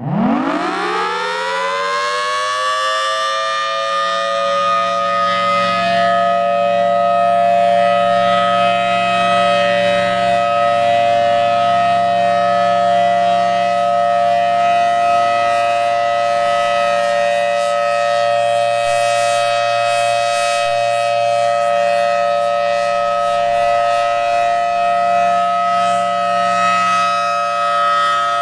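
Federal Signal Thunderbolt 1000T outdoor warning siren winding up, its pitch rising quickly over about the first two seconds, then holding a loud steady chord of two close tones. This is the siren's steady full alert, which it sounds when it misses the cancel tones.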